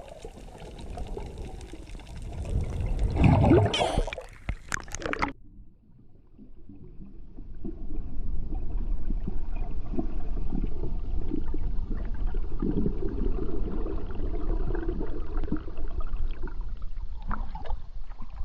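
Water gurgling and splashing, steady from about seven seconds in. Before that comes a shorter stretch of mixed noise that cuts off suddenly about five seconds in.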